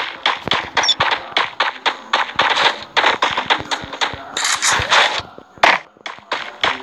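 A rapid run of sharp knocks or clacks, about five a second, with a longer noisy burst a little past halfway and a short break near the end.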